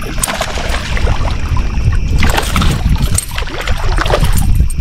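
Water splashing as a hooked smallmouth bass thrashes at the surface beside a boat while being landed, in surges at the start, about two seconds in and again near the end.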